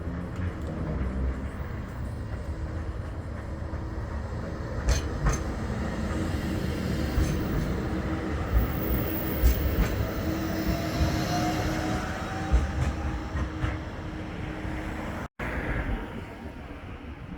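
Bombardier Flexity 2 tram running on street track: a rumble with a steady hum, a handful of sharp clicks, and a rising whine from about nine seconds in.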